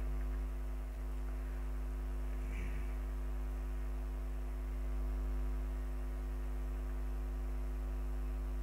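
Steady electrical mains hum with a buzzy stack of overtones, unchanging throughout, picked up by the recording setup while the narrator is silent.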